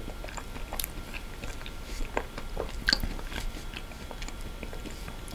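Close-miked mouth sounds of someone eating spoonfuls of soft ice cream: scattered small clicks and smacks, one a little louder about three seconds in.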